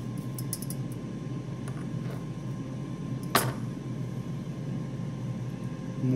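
Steady low fan-like hum, with a few faint clicks and one sharper click about three and a half seconds in.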